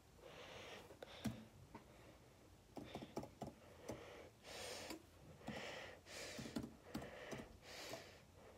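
Faint, scattered keystrokes on an HP laptop keyboard, typing in a login at the Windows sign-in screen.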